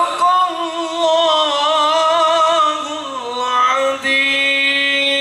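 A man's solo voice chanting a long melismatic line of Arabic religious recitation into a handheld microphone: wavering ornaments on each note, then settling into one steady held note about four seconds in.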